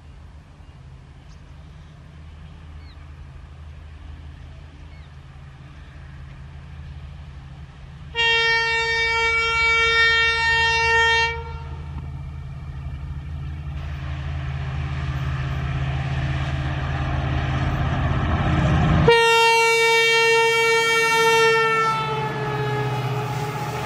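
EMD diesel locomotive approaching and passing at speed, its engine drone and wheel-on-rail noise growing steadily louder. It sounds two long horn blasts, the first about eight seconds in for about three seconds, the second as it draws alongside, its pitch dropping as the locomotive goes by.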